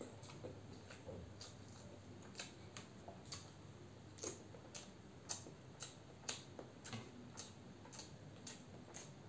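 Hard-boiled eggs being cracked and peeled by hand: faint, irregular small clicks of shell breaking, a few sharper ones in the middle.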